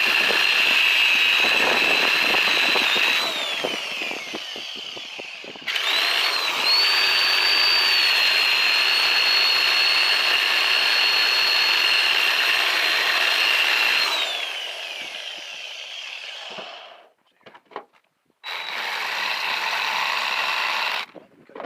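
Angle grinder with a cutoff wheel cutting into the steel of an electric motor, running in three spells with a high whine; after the first two spells the pitch falls away as the disc spins down, and near the end it starts up again for a shorter cut.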